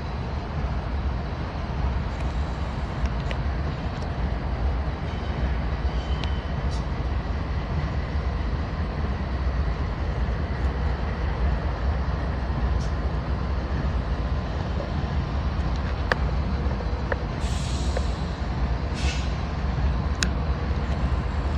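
Diesel locomotives idling, a steady low rumble with a few faint clicks. Two short hisses of released air come near the end.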